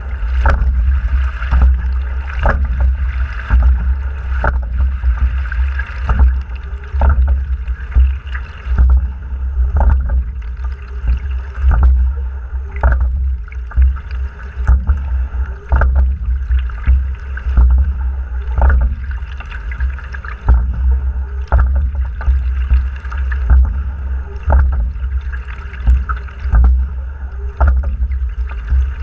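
Fluidesign racing single scull under way, heard from a camera fixed to the hull: a steady rush of water along the hull over a heavy low rumble, with a sharp knock roughly every two seconds as each rowing stroke goes through.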